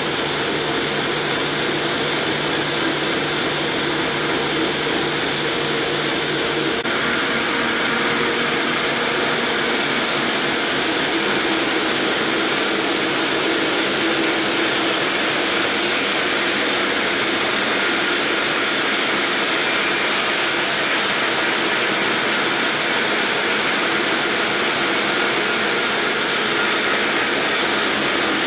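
Multi-blade granite block cutter running, its gang of large circular saw blades grinding steadily through a granite block as a loud, even whirring rush; the sound shifts slightly about seven seconds in.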